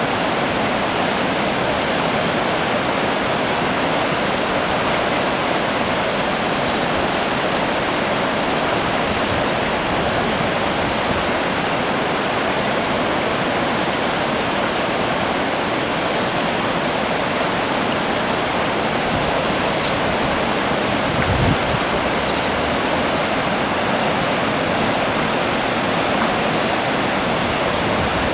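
Fast river water rushing steadily over rocks in white-water rapids below a weir.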